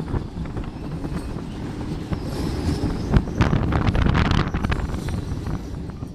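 Passenger train running across a steel girder bridge: a steady heavy rumble of wheels on the rails, overlaid with rapid clicking and clanking of the wheels over rail joints. There is a sharp knock about three seconds in, and a brighter hissing stretch through the middle.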